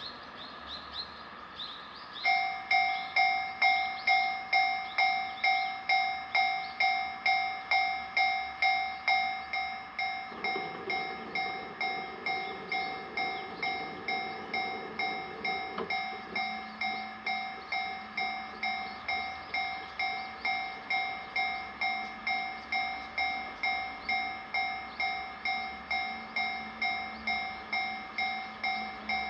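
Japanese level-crossing warning bell starting about two seconds in and ringing over and over, about two strikes a second, a little quieter from about ten seconds in. A low rumble joins it for several seconds in the middle.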